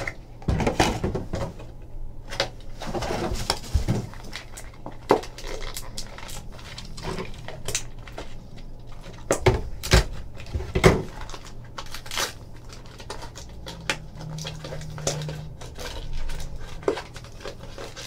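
Hands handling a cardboard trading card box and its wrapped packs: irregular knocks, taps and scrapes against the table, with rustling. A faint steady low hum lies underneath.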